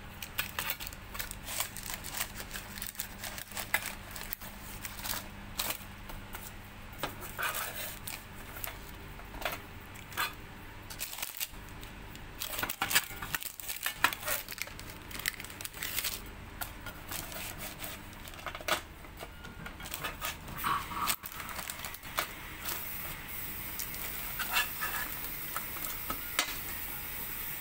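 Baked granola being turned over on a parchment-lined baking pan: irregular scraping and clicking of a utensil against the pan as the dry oat and nut clusters shift. A steady hiss comes in near the end.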